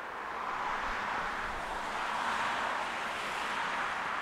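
Twin-engine jet airliner climbing out after takeoff, its engines at takeoff power making a steady rushing noise that swells a little about half a second in.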